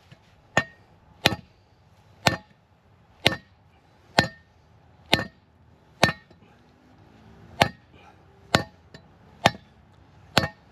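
Heavy hammer blows on hardened steel, about one a second with a short pause partway through, each a sharp ringing metal strike, driving a new front wheel bearing into a Ford Fusion's steering knuckle without a press.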